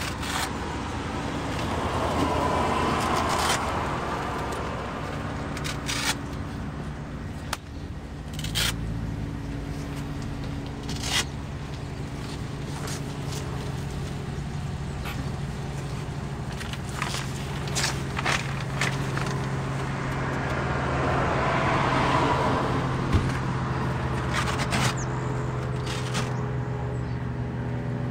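Rubber cargo liner being dragged, shifted and pressed flat on the cargo floor, giving scrapes, scuffs and light knocks. Underneath is a steady low hum, and background traffic swells up twice as if vehicles are passing.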